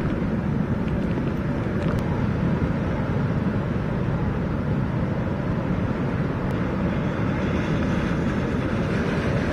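Steady rushing noise of wind and heavy rain, strongest in the low range, with a few faint clicks near the start.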